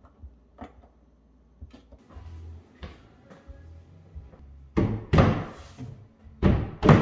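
Wooden range-hood cover panel being fitted back into place: a few light clicks, then two loud knocks with a short scrape, about five seconds in and again near the end.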